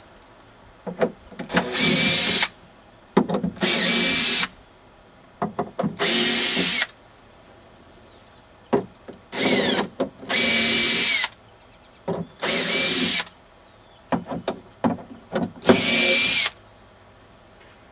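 Cordless screw gun (drill/driver) backing screws out of plywood roof sheathing. It runs in about seven short spurts of under a second each, and between them come small clicks and knocks as the bit is set into the next screw.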